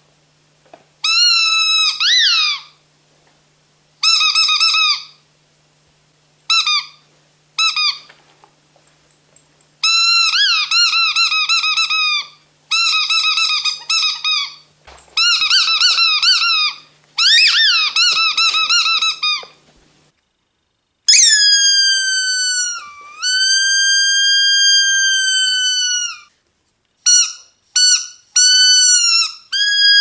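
Rubber squeaky dog toy shaped like a pineapple, squeezed over and over in quick bursts of wavering squeaks. From about two-thirds of the way in, a second squeaky toy gives longer, steadier squeals, one of which dips in pitch.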